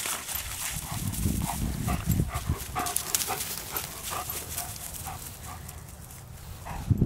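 German Shepherd panting in short, quick breaths, about three a second, with the rustle of dry grass and a low rumble of wind on the microphone.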